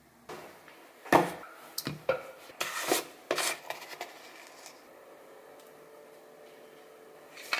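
A plastic pre-workout tub and shaker cup handled on a countertop: a run of clicks, knocks and scrapes as the lid comes off and the cup is moved, for about four seconds. Then a faint steady hum, and one more sharp click near the end.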